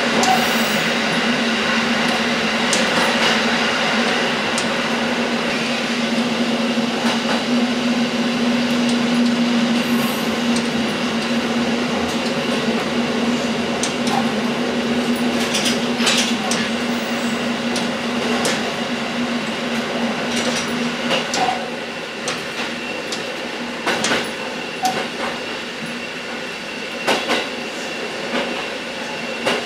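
KiHa 11 diesel railcar running along the line, heard from inside the car, with a steady drone that stops about two-thirds of the way through as the sound drops. Sharp clacks of wheels over rail joints come at uneven intervals in the second half.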